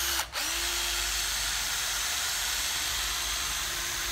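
Hitachi 12V cordless drill/driver motor and gearbox whirring at speed under the trigger; it cuts out briefly a fraction of a second in, starts again, runs steadily, and stops at the end.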